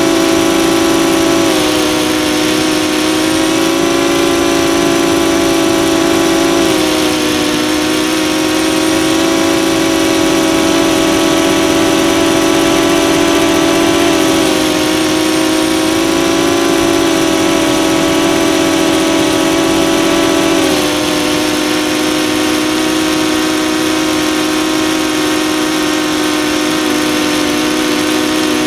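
DJI Phantom 2 quadcopter's four electric motors and propellers humming steadily, recorded by the camera on the drone itself, with the pitch dipping and shifting slightly a few times as the throttle changes.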